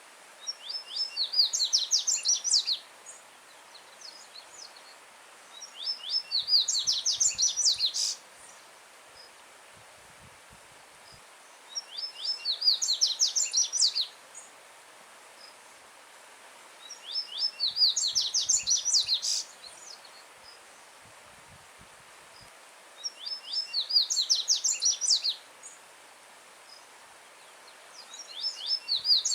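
Yellow-bellied seedeater (coleiro baiano) singing six loud phrases about five to six seconds apart. Each phrase is a quick run of high, clear slurred notes that speeds up and grows louder over about two seconds, and the last is cut off. A faint steady rush of a stream runs underneath.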